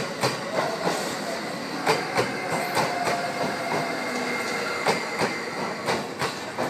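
JR E751-series electric train rolling slowly into the station. Its wheels clack over the rail joints in close pairs of knocks as each bogie's two axles cross, over a steady rolling noise.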